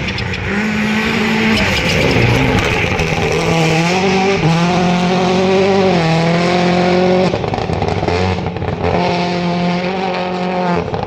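A rally car's engine running hard at full throttle, its pitch climbing and then dropping in steps as it changes gear. The engine note breaks off about seven seconds in and picks up again near the end.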